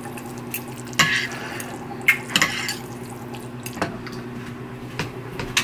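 Metal fork and chopsticks clinking and scraping against a ceramic bowl of noodles, a handful of short separate clicks over a steady low hum.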